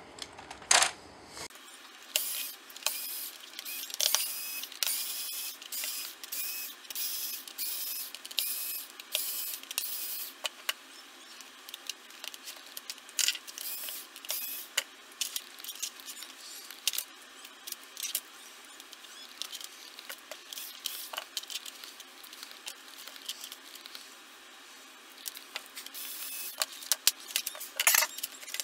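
Plastic computer keyboard being taken apart by hand: a string of sharp clicks and small rattles as screws are removed and the plastic case and parts are handled. The clicks come thick and fast for the first ten seconds or so, thin out, and bunch up again near the end.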